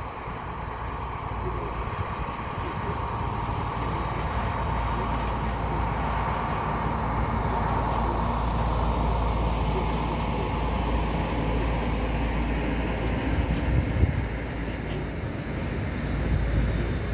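A diesel-hauled works train of freight wagons rolling past, a steady rumble of wheels on rail that grows louder over the first few seconds. There is a single sharp clank about 14 seconds in.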